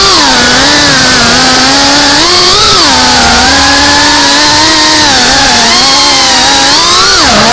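FPV racing quadcopter's electric motors and propellers whining loudly, close up from the drone itself, the pitch rising and falling with the throttle as it banks and weaves. Near the end the pitch drops sharply and then climbs back up.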